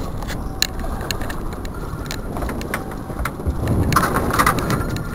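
Steady low rumble of a boat's engine under wind on the microphone, with scattered sharp clicks and a louder patch of rustling about four seconds in.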